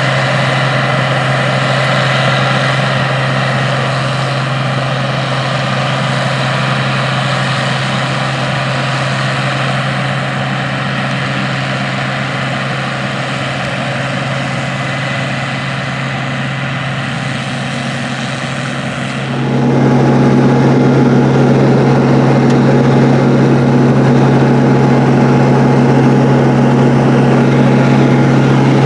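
International 815 combine running steadily under harvesting load, a constant engine drone with a strong low tone. About two-thirds of the way in, the sound abruptly becomes louder and fuller.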